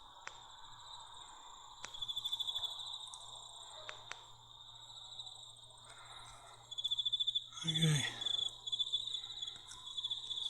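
Crickets trilling steadily at a high pitch, with the trill pulsing in strength, and a few faint sharp clicks.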